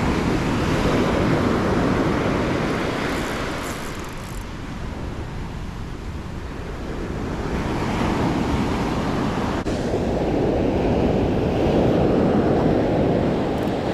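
Ocean surf washing onto the rocky shore, rising and falling in two swells, with wind buffeting the microphone.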